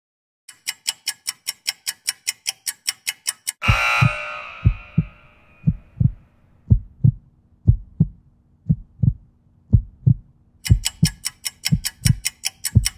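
Workout-timer sound effects: rapid ticking, about four ticks a second, through the last seconds of the work interval, then a loud noisy crash about four seconds in that marks the switch to rest. Through the rest period, a heartbeat-like double thump about once a second plays over a low steady hum, and the rapid ticking comes back near the end as the rest counts down.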